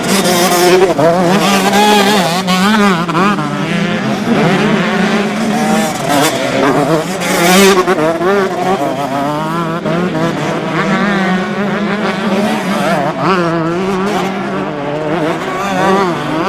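125cc two-stroke motocross bike engines revving hard, the pitch climbing and dropping over and over as the throttle is opened and shut.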